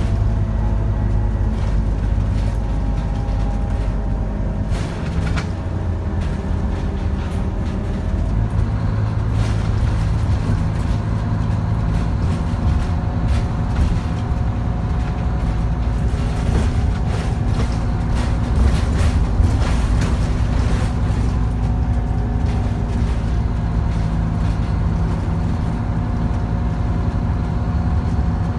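Scania N230UD OmniCity double-decker bus heard from inside the passenger saloon while under way: its diesel engine running under load with a whining drivetrain note that dips a few seconds in and then builds again. Interior rattles and clicks sound throughout.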